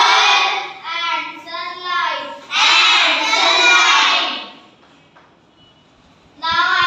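A child singing in sustained phrases, with a pause of about two seconds near the end before the singing starts again.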